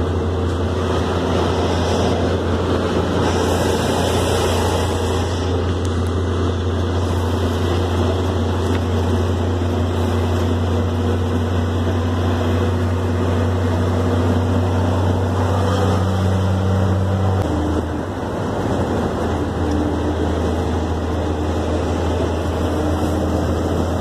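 Diesel engine of a Mercedes-Benz 1620 truck droning steadily inside the cab while driving on a highway, with road noise under it. About 17 seconds in, the engine note shifts to a different pitch and dips briefly.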